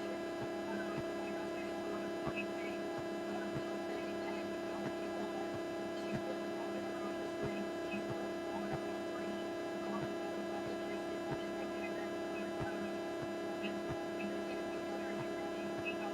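Steady electrical hum: a mains-type drone of several fixed tones, with faint scattered clicks over it.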